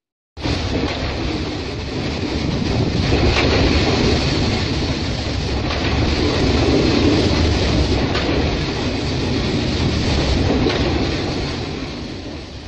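Freight train of loaded coal wagons rolling past: a steady rumble and hiss, with the wheels clacking over rail joints, while trackside water sprayers wet the coal. It starts abruptly and fades out near the end.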